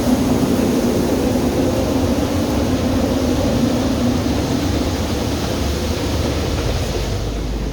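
Grain dryer's fan running with a steady, loud drone and hum. Near the end the hiss thins and a low rumble comes up.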